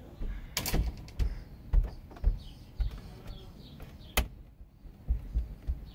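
Dull thumps of a person jumping up and down on a wooden floor, heard from the crawlspace below, with a few sharp knocks from the floor framing. The floor is being bounced to test whether new 2x6 posts on concrete pier blocks have firmed up a soft, bouncy subfloor.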